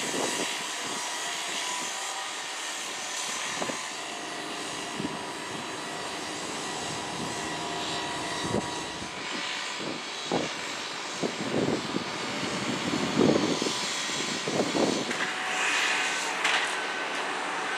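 Steady background hum of distant motor traffic, with a few faint knocks in the second half.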